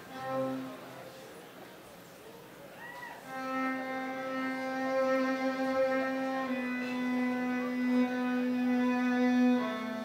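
Solo violin, bowed: a short note at the start, a quiet pause, then from about three seconds in long sustained notes, the held pitch stepping down slightly about halfway through and changing again near the end.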